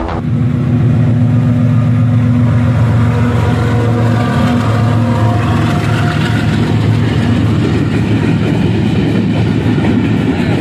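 Diesel locomotive hauling a container freight train past at close range: a steady low engine drone. About halfway through it gives way to the rumble of the container wagons rolling by.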